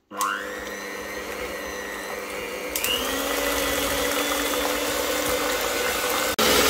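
Mandine electric hand mixer starting up and beating cold, set pastry cream in a stainless steel bowl to loosen it. The motor whine rises as it spins up, steps up in pitch about three seconds in as the speed is raised, and breaks off for an instant near the end before running on.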